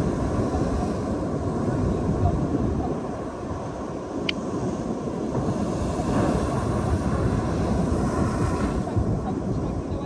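Ocean surf breaking against the edge of a sandstone rock platform, a steady low rush that swells louder about two seconds in and again around six to eight seconds.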